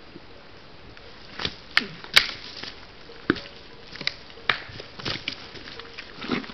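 Red deer stag rolling in a mud wallow: a run of irregular wet splashes and slaps of mud and water, the loudest about two seconds in.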